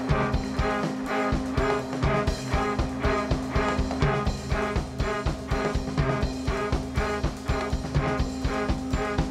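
Live viola and drum kit duo playing instrumental rock: the drums keep a fast, even beat of about three hits a second while the bowed viola repeats short figures over a held low drone.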